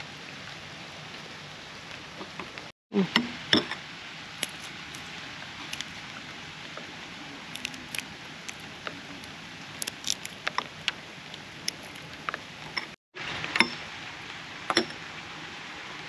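Scattered light clicks and knocks, irregular and a few at a time, over a steady hiss. The sound cuts out briefly twice.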